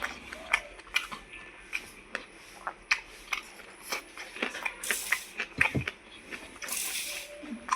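A person eating rice and dal, close to the microphone: wet chewing and lip-smacking with many sharp mouth clicks, and two short hissy sounds, one about five seconds in and one about seven seconds in.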